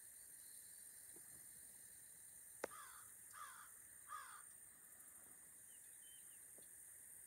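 A bird calls three times, short harsh calls about two-thirds of a second apart, over a faint steady high insect hum. A single sharp click comes just before the first call.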